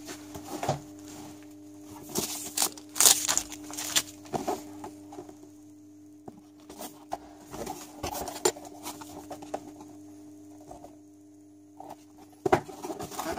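Cardboard motherboard box being handled and turned over: irregular taps, scrapes and rustles, dense at first and sparser through the middle, over a faint steady hum.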